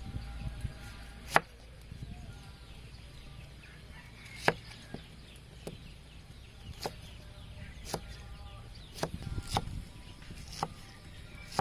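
Kitchen knife cutting fresh pineapple on a wooden chopping board: about ten sharp knocks at uneven intervals as the blade goes through the fruit into the wood.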